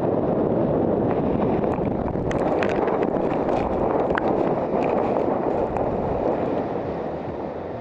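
Steady rush of wind buffeting the microphone, with scattered short clicks between about two and five seconds in.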